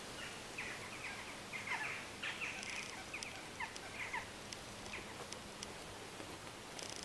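Small woodland birds calling: a quick run of short, downward-sweeping chirps for the first five seconds or so, then thin high ticks, over a steady background hiss.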